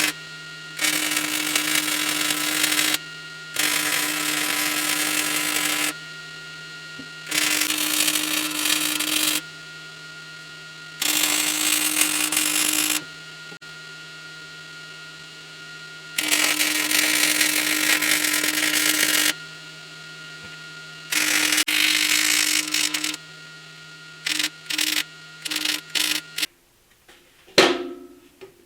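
MIG welder arc crackling in a series of welds about two to three seconds long with short pauses between, then several quick tack welds near the end. A steady hum from the welder runs underneath and cuts off near the end, followed by a single knock.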